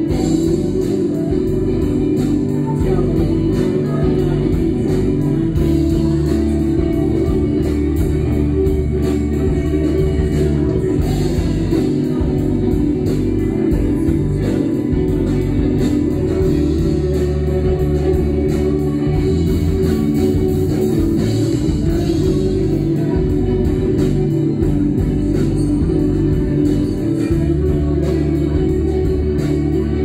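Live rock band playing electric guitars, bass guitar and drum kit, with a sung vocal line over a steady beat.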